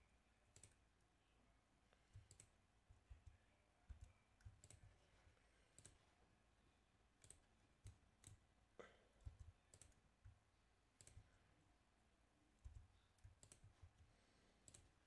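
Faint, scattered clicks of a computer mouse, a dozen or so at uneven intervals, with soft low thumps, over near silence.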